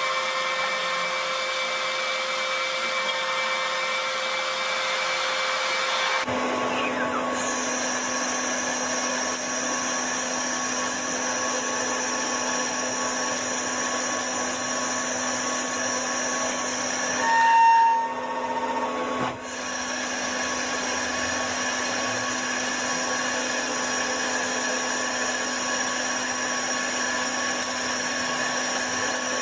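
CNC lathe cutting aluminium: a steady machining whine from the spindle and the tool facing the disc. Its tone changes about a fifth of the way in, and there is a brief louder swell a little past halfway.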